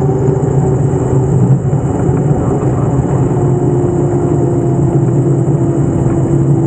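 Diamond DA42 twin's engines and propellers running steadily, heard from inside the cockpit as the aircraft rolls on the ground. It is a constant low hum with a higher tone that drops slightly in pitch over the last few seconds.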